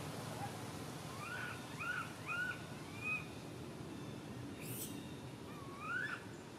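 Baby macaque crying: four short, arching cries in quick succession, then one longer rising cry near the end. A brief sharp high-pitched sound comes about halfway through.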